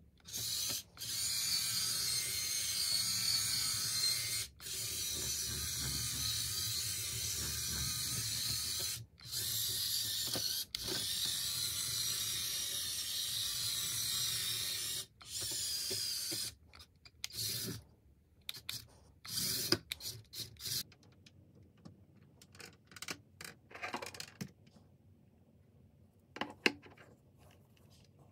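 Little Tikes RC Tire Twister toy car's electric motors and plastic gears whirring in long runs of a few seconds each, with brief stops between them. For roughly the last twelve seconds the motor is off, leaving scattered clicks and knocks of hard plastic being handled.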